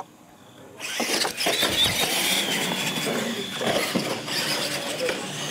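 Radio-controlled monster truck racing on a concrete floor, starting suddenly about a second in: the electric drive whines, the tyres scrub, and there are sharp knocks as a truck climbs and bangs over a ramp.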